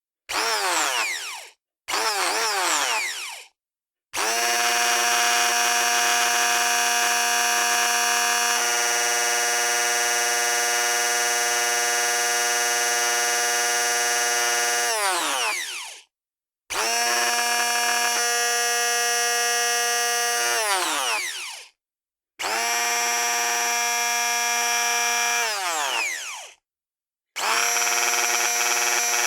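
Electric hand blender motor switched on and off repeatedly, running at a steady high whine. It starts with two short bursts, then one long run of about twelve seconds, then three runs of a few seconds each. Every time it is released the whine winds down, falling in pitch as the motor coasts to a stop, and it starts up once more near the end.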